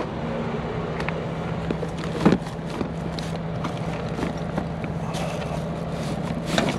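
A semi truck's diesel engine runs steadily with a constant low hum. Over it come scattered small clicks and knocks of things being handled, with a louder knock about two seconds in and another near the end.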